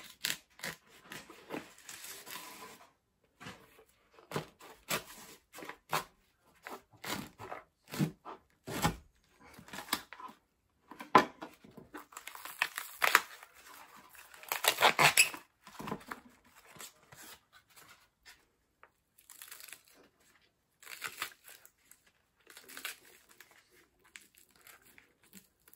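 A fresh bamboo shoot being husked by hand: a knife slits through the tough outer husk in a string of short cuts, then the husk is pried open and its leaves are torn and peeled away from the shoot, loudest about halfway through.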